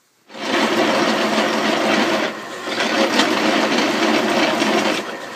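Drill press boring a hole through a steel plate, the bit cutting steadily with a dense grinding noise that eases briefly about two seconds in and again near the end.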